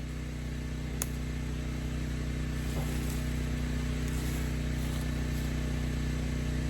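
Small gasoline engine of a 3-inch wood chipper running steadily, its chipper jammed by a stick on the first feed. A single sharp click about a second in.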